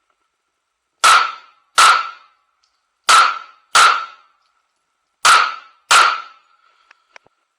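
Pistol shots fired in a match stage: six shots in three quick pairs, the two shots of each pair well under a second apart and about two seconds between pairs.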